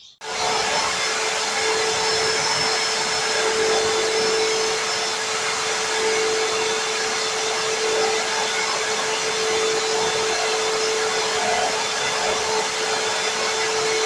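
Imarflex canister vacuum cleaner switched on just after the start, then running steadily with a constant whining tone while its floor nozzle is pushed back and forth over a wooden floor.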